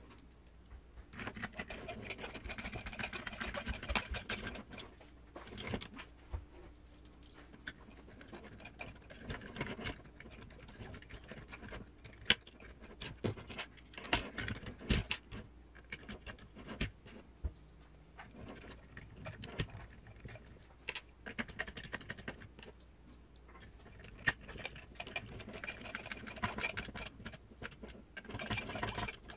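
Clicks, taps and metallic rattling from an RC crawler's metal chassis rails and small screws being handled and fastened by hand, with stretches of denser scraping and rattling near the start and near the end.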